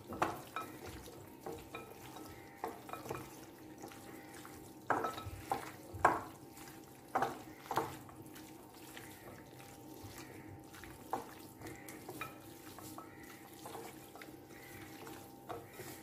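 Raw chicken lollipop pieces being mixed by hand in a glass bowl of wet spice marinade: soft, wet mixing sounds with scattered light knocks against the bowl, the loudest cluster about five to eight seconds in.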